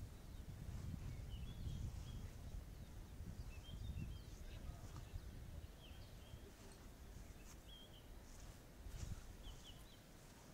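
Small birds chirping, short high notes scattered throughout, over a low, uneven rumble on the microphone.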